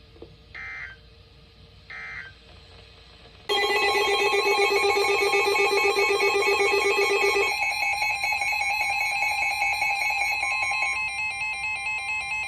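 Emergency Alert System broadcast audio: two short warbling data bursts, the tail of a three-burst end-of-message code. About three and a half seconds in, a loud steady electronic attention tone begins and sounds on, changing character twice; it heralds the next severe weather warning.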